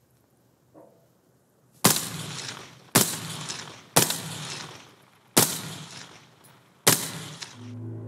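Five shots from an AR-15-style carbine, each a sharp crack with a short decaying tail, spaced about a second to a second and a half apart.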